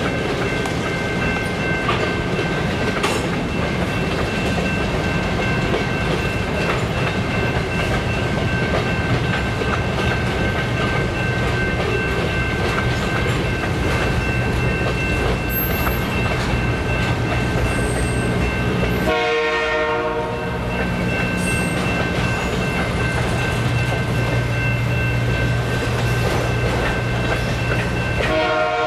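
Freight cars, covered hoppers and then autoracks, rolling past at close range: a steady rumble with wheel clatter and a thin, steady high whine over it. The sound dips briefly about two-thirds of the way through.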